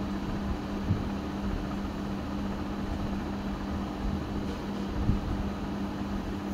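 Steady electric hum of a Juki industrial sewing machine's motor running while the needle is not stitching, with a couple of soft knocks.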